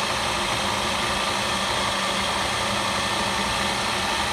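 Solberga gear-head drill press running steadily with no load in its top gear range (792/1584 rpm): an even whine of gears and motor over a hiss.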